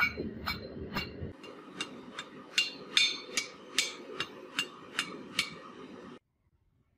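Hand hammer striking red-hot iron held in tongs on an anvil: steady blows, two to three a second, each with a bright metallic ring. The blows stop and all sound cuts off suddenly about six seconds in.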